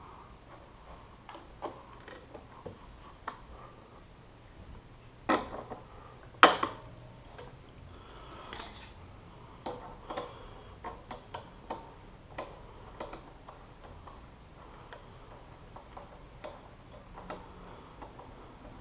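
Irregular clicks and taps of hand tools and exhaust hardware being handled during a motorcycle exhaust install, with two louder sharp knocks about five and six and a half seconds in.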